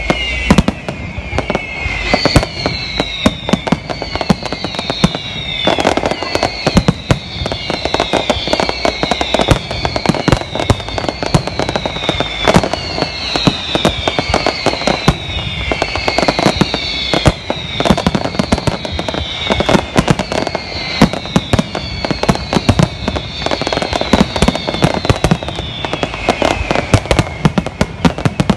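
Fireworks display: a dense run of bangs and crackling from many shells bursting, with high falling whistles repeating about once a second.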